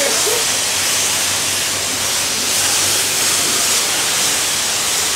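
Car wash high-pressure washer spraying water, a steady loud hiss.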